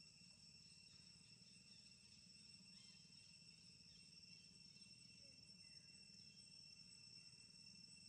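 Near silence with a faint, steady high-pitched insect drone and a few faint chirps.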